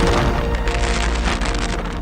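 Background music with held tones over a dense noisy wash, getting gradually quieter.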